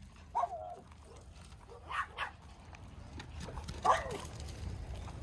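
Small dogs barking in short, sharp barks: one about half a second in, two in quick succession around two seconds, and a louder one just before four seconds.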